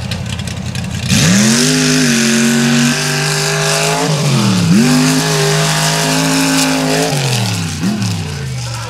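Mega truck engine revving up hard about a second in and running at high revs. The pitch climbs, drops sharply and climbs again near the middle, then falls away near the end.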